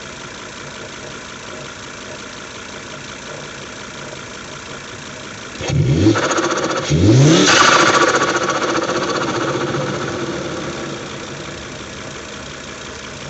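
2004 Volvo XC70's turbocharged engine idling, then revved twice in quick succession about six and seven seconds in. After the second rev comes a loud rushing turbo flutter that fades away over about three seconds: the compressor surging against the closed throttle because the bypass valve's vacuum line has been unplugged and capped.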